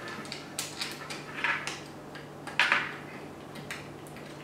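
Hands handling small hard rifle-stock parts and hardware on a tabletop: a scattering of light clicks and clinks, with the sharpest tap about two and a half seconds in.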